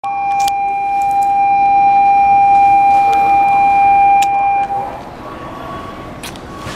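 A steady electronic buzzer tone, the station's departure signal, heard through the train's open door. It holds one pitch for about four and a half seconds and then stops, with a few light clicks and knocks over it.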